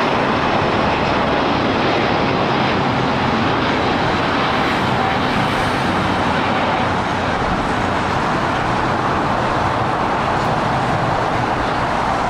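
Jet airliner engines, a steady loud rush.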